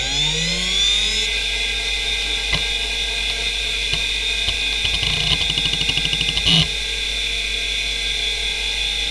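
Western Digital Caviar 2340 340 MB IDE hard drive (3322 rpm) spinning up: the spindle motor whine rises in pitch for about the first second, then holds steady. A few single head clicks follow, then a rapid run of seek ticks from about five seconds in as the drive initialises, ending in a louder clunk, after which the drive idles with a steady whine.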